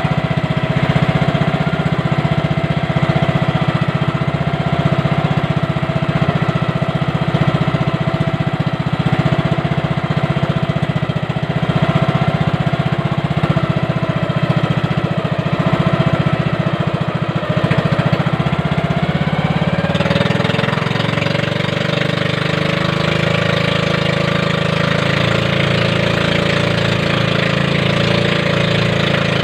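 Engine of a small motorized fishing boat (bangka) running steadily, its note changing about twenty seconds in.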